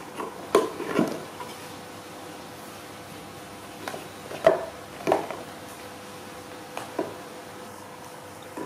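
Hollow wooden knocks as a baby monkey clambers over a low wooden board and the board bumps against the concrete floor. There are two knocks about half a second apart early on, two more around four and a half and five seconds, and a lighter one near seven seconds.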